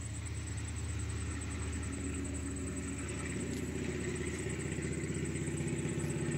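A motor vehicle's engine running, a steady low hum that slowly grows louder.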